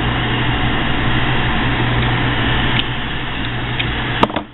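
Small handheld gas torch burning with a steady hiss and a low hum under it. A single sharp click comes about four seconds in.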